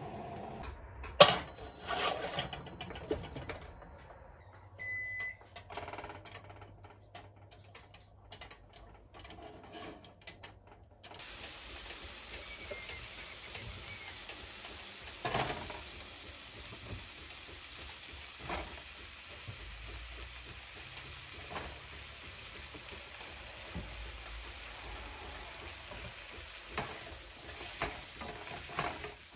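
Kitchen cookware clattering, with a sharp metal knock about a second in and a brief high beep a few seconds later. Then, from about eleven seconds, fat sizzles steadily in a nonstick frying pan, with occasional knocks of utensils. Near the end asparagus is stirred in the hot pan with chopsticks.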